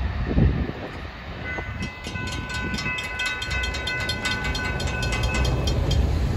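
Railroad grade-crossing warning bell ringing with rapid, evenly spaced strikes, starting about a second and a half in and stopping near the end, over a low steady rumble.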